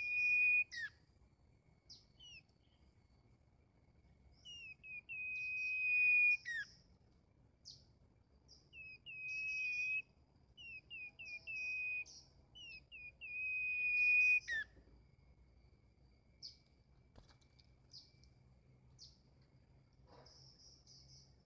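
A caged merbah lilin bulbul singing. Phrases of quick down-slurred whistled notes each end in a long, steady, clear whistle, repeated about four times. In the last few seconds come softer, higher, scattered chirps.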